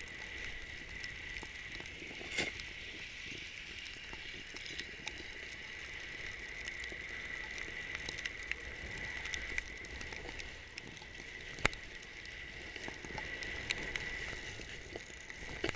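Snowboard riding through deep powder snow, a steady hiss of snow, with a couple of sharp knocks, about two and a half seconds in and again about twelve seconds in.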